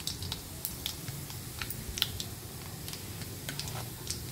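Mustard seeds crackling and popping in hot oil: irregular sharp pops, one louder about two seconds in. The seeds spluttering is the sign that the oil is hot enough for the tempering.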